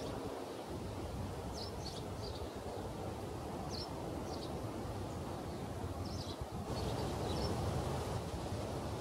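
Wind in the tree's leaves with a steady low rumble, and short, high bird chirps in small groups of two or three, several times over.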